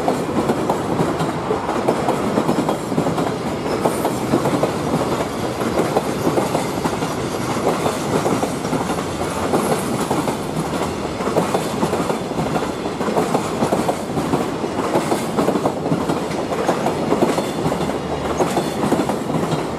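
JR Freight Koki container flat wagons rolling past, wheels clattering steadily over the rail joints with a continuous rumble.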